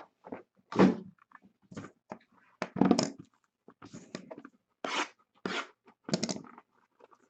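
A string of short handling noises, about eight separate rustles, taps and knocks spread over several seconds.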